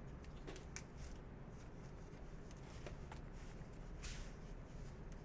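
Baseball trading cards being handled and flicked through by hand: faint soft slides and a few sharp card-edge ticks, with a brief rustle about four seconds in.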